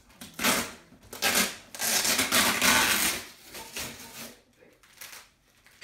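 Cardboard shipping box being opened by hand: its flaps rub and the invoice envelope on top is pulled and torn off, in several paper-and-cardboard rustling, tearing bursts, the longest about two seconds in.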